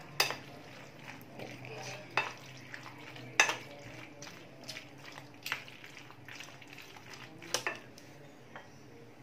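Plastic spoon stirring macaroni through a thick cream-and-mayonnaise dressing in a glass bowl: soft wet scraping with scattered sharp clicks of the spoon on the bowl, the loudest about three and a half seconds in.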